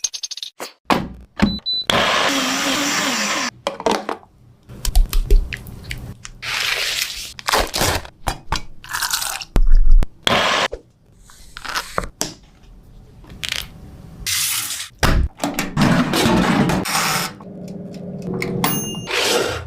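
Kitchen preparation sounds cut one after another: sharp knocks, crunches and clatters between bursts of rushing, noisy sound lasting a second or two.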